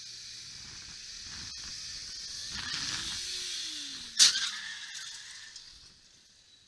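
Faint traffic noise that builds slightly, with a low engine-like pitch rising and falling, then a single sharp bang about four seconds in that dies away quickly, typical of a car collision impact.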